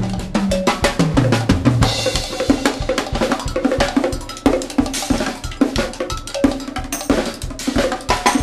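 Rock band music driven by a drum kit, with fast, dense kick, snare and cymbal hits over a moving bass line and no singing.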